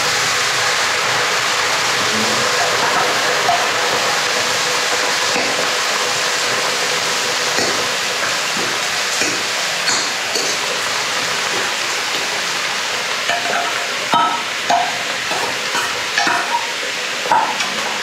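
Chopped onions frying in hot mustard oil in a metal kadhai, a steady sizzle, with a steel ladle scraping and stirring through them in repeated strokes from about halfway, more often near the end.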